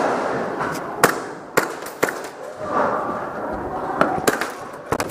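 Airsoft guns firing single shots: about seven sharp cracks at uneven intervals, the last two close together.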